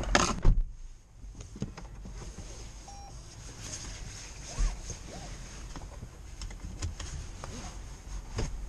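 A Toyota RAV4's door shutting with a thud about half a second in, after which the outside noise drops away to a quiet car cabin with scattered small clicks and a short beep about three seconds in.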